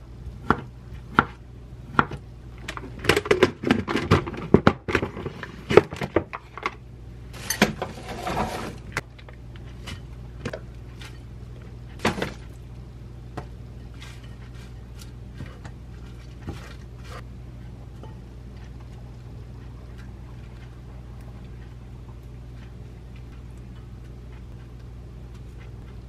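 A knife chopping potato on a wooden cutting board, several sharp strokes about half a second apart, followed by a busy stretch of kitchen clatter and a short burst of rustling as salad ingredients are handled. After that only a few light clicks, and from about halfway on just a low steady hum.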